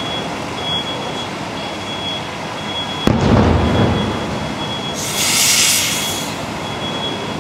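A sudden low boom about three seconds in, rumbling away over about a second, then a burst of hiss lasting about a second, over a steady background.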